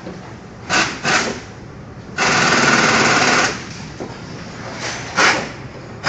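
Air impact wrench rattling in short bursts, with one longer run of more than a second in the middle.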